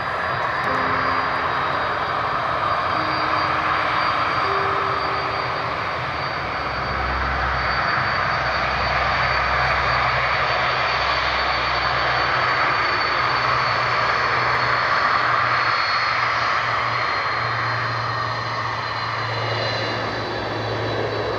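Boeing 747-400 jet engines running on the runway: a steady rushing noise with a thin high whine above it and a low hum beneath, swelling only slightly.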